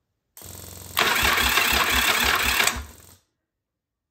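Yamaha Virago 1000 V-twin being cranked over by its newly installed electric starter motor: a short whir, then nearly two seconds of loud cranking in even pulses that winds down and stops. The engine does not fire, because the spark plug caps are still off, but the cranking shows the new starter and its drive are working.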